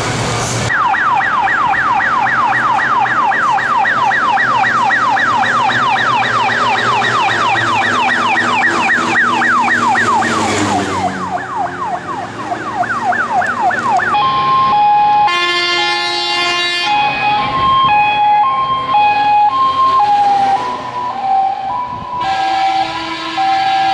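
Fire engine siren in a fast rising yelp, about four sweeps a second, which then slows and drops in pitch as it winds down. It is followed by a steadier two-note tone alternating high and low.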